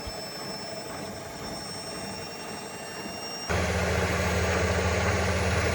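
Washing machine running: a steady mechanical hum that switches abruptly, a little past halfway, to a louder, deeper hum.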